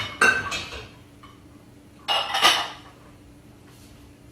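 Pots, dishes and utensils clattering, in two short bursts of metallic clinks with a brief ringing, the second about two seconds in.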